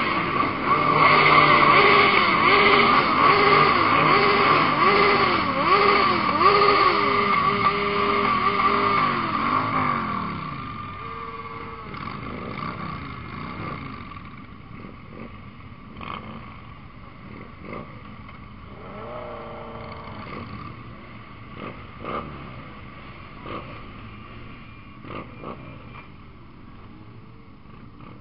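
Many motorcycle engines running and revving up and down in a column of bikes. The sound is loud for about the first ten seconds, then drops to quieter engine noise with a few short knocks.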